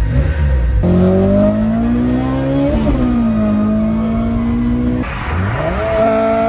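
A car engine revving under load, its pitch climbing, dropping back and holding steady, in a few clips cut together abruptly.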